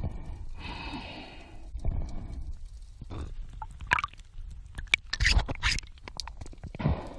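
Muffled underwater sounds of a diver handling an octopus close to the camera: irregular low rumbles and scrapes with scattered sharp clicks.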